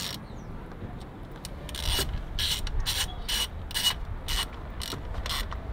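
Ratchet wrench clicking through a run of short back-strokes as a bolt is done up, about eight strokes starting about two seconds in.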